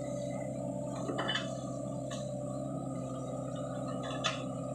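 Sany SY55C mini excavator's diesel engine running steadily while the machine digs, a constant pitched hum. A few brief knocks break through it, the sharpest about four seconds in.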